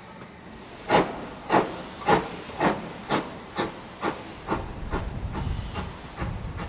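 Steam locomotive exhaust chuffing: a run of sharp beats starting about a second in, gradually quickening as the engine works, with a low rumble of the train joining in the second half.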